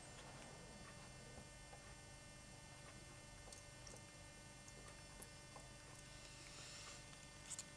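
Near silence over a steady electrical hum, with a few faint clicks from a small screwdriver undoing a tiny screw inside a second-generation iPod nano; two of them come close together near the end.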